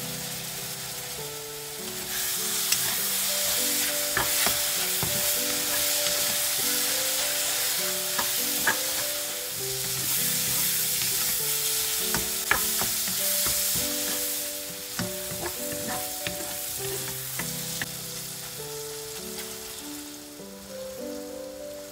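Mushrooms and garlic sizzling in butter and oil in a wok, getting louder about two seconds in. A wooden spatula stirs them, with scattered clicks and scrapes against the pan. Background music plays underneath.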